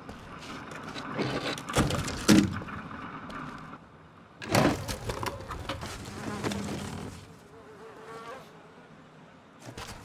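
Film sound effects: loud knocks and clatter of wood and rubble being shifted, twice about two seconds in and again near the middle, followed later by a short warbling trill.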